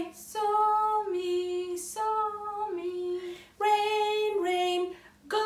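A female voice singing an unaccompanied two-note sol–mi children's tune, holding notes that step between a higher and a lower pitch a minor third apart, in short phrases with brief breaks.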